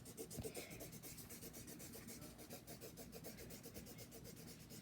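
Faint, rapid back-and-forth scribbling of a colouring tool on paper, filling in a shape with many quick strokes.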